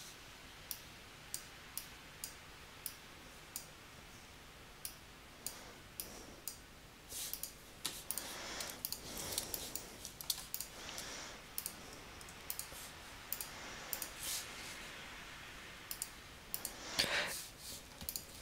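Computer mouse clicking: single sharp clicks about once a second, with a few longer, softer scuffing noises in the middle and near the end.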